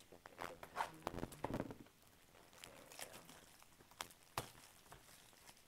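Scattered clicks, taps and short rustles of trading-card box packaging being handled and opened, with a few sharper knocks about a second in and about four seconds in.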